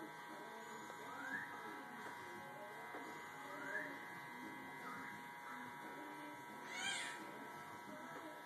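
Corded electric hair clippers buzzing steadily while cutting a child's hair. A few short rising squeals sound over the buzz, the loudest about seven seconds in.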